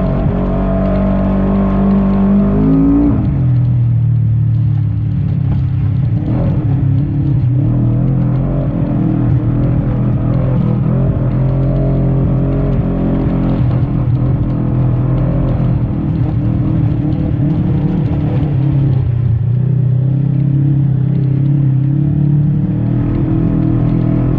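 Segway Villain UTV engine running hard under load. It revs up with a rising pitch, drops sharply about three seconds in, then holds a steady high drone.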